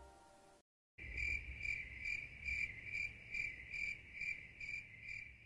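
Closing music fades out, then after a short silence a high-pitched chirping starts, pulsing a little over twice a second.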